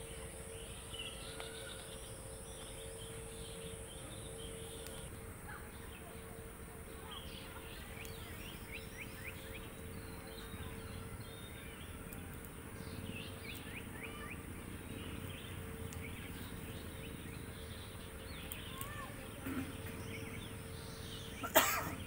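Forest ambience: many short bird chirps and calls over a steady background hiss, with a high insect buzz that stops about five seconds in. A sharp knock near the end is the loudest sound.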